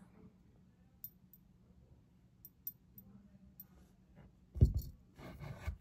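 Faint scattered clicks, then a couple of louder dull knocks about four and a half seconds in, followed by brief rustling: small objects being handled and set down.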